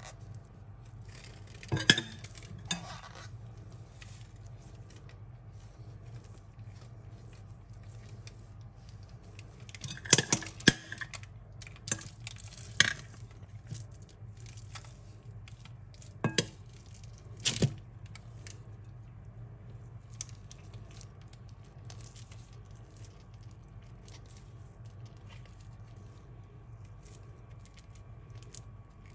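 A metal spoon clinking and scraping against a glass bowl while scooping filling, in scattered sharp clinks with a cluster near the middle, over a low steady hum.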